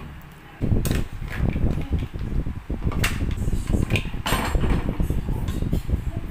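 Pot of seafood broth boiling on a gas stove, a steady low bubbling rumble that comes up about half a second in as the lid comes off, with a few sharp clinks of the lid and ladle against the pot.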